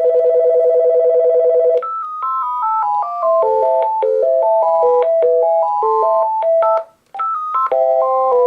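Uniden D3097 cordless phone base ringing loudly: a rapid two-tone warble trill, then, about two seconds in, a change to a melodic ringtone of stepping electronic notes. The melody breaks off briefly a little before the end and starts over.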